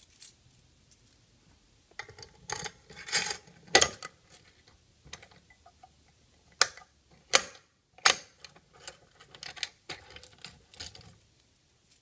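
An FCI MS-2 fire alarm pull station being reset by hand: a string of metal clicks and rattles as its handle and cover are pushed back into place and latch, with a few sharp snaps between about four and eight seconds in.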